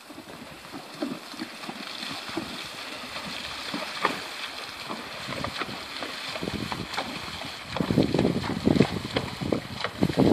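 A horse wading across a shallow creek, with irregular splashing over the sound of running water. The splashing gets louder and heavier for the last couple of seconds.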